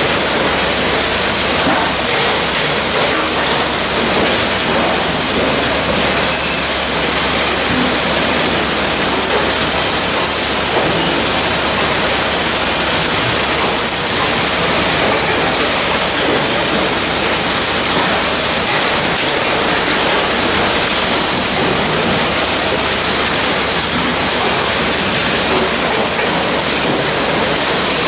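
Spooner industrial bread line running at its packing end, with conveyors and a crate loader moving bagged loaves into plastic crates: a loud, steady wash of machine noise with no distinct beats.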